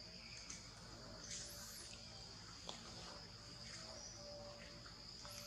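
Faint steady high-pitched insect drone, with a few brief high bird chirps.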